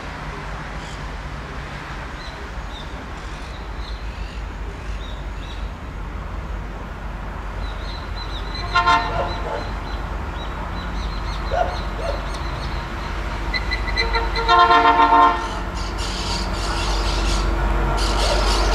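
Diesel freight locomotive approaching, its engine and train rumble growing steadily louder, with a short horn toot about nine seconds in and a longer horn blast around fifteen seconds in.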